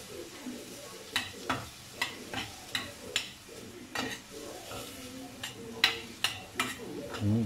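A metal spoon scraping and knocking against a stainless steel pan while stirring chicken, onion, garlic and tomato sautéing in a little oil, with a light sizzle underneath. The knocks come irregularly, about one every half second.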